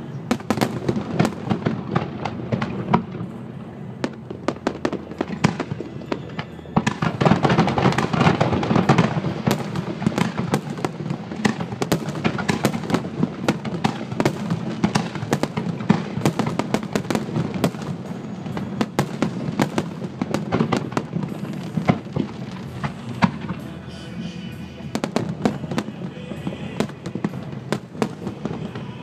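Fireworks finale barrage: aerial shells bursting in rapid, overlapping succession, a dense run of sharp bangs with no gap. It is densest and loudest about a quarter of the way in.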